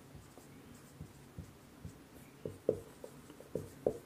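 Marker pen writing on a whiteboard: a run of short squeaks and taps from the pen strokes, sparse at first and coming thicker in the second half.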